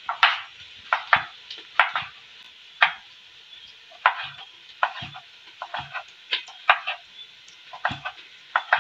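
Kitchen knife chopping tomatoes on a wooden cutting board: irregular sharp knocks of the blade on the board, about two a second.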